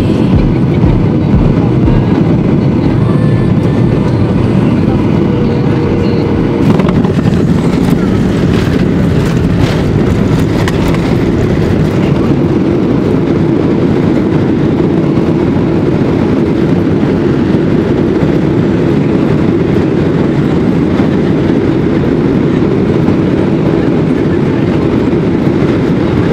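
Cabin noise of a Boeing 737-900ER landing: the loud, steady roar of its CFM56-7B engines and the rushing air. A few knocks come between about seven and eleven seconds in as the wheels touch the runway, then the rumble of the landing roll.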